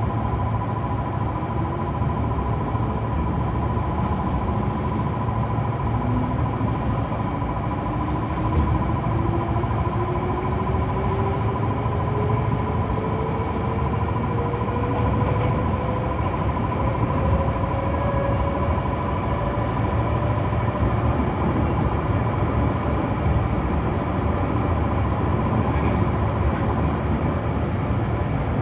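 Kintetsu 6020-series electric train running, with a steady rumble of wheels on the rails. Over the first twenty seconds a whine climbs slowly in pitch, and a steady high tone fades out about twenty seconds in.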